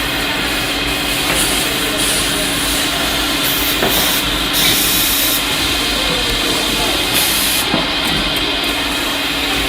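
Factory machinery running steadily: a constant hiss with a steady hum underneath.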